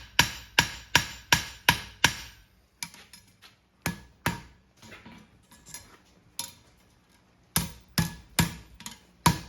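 Farrier's hammer striking a handmade steel horseshoe on the side of the anvil, drawing a toe clip. A run of regular ringing blows, about two and a half a second, stops about two seconds in; a few lighter scattered taps follow, then another quick run of blows near the end.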